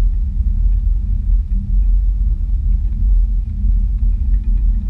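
Wind buffeting the microphone of an action camera mounted on a parasail's frame in flight: a loud, steady low rumble.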